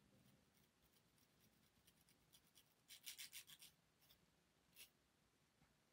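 Faint rubbing strokes of a plastic rat-tail comb drawn through the front hairline of a blonde wig: a quick run of about six short strokes about three seconds in, and one more a little before five seconds.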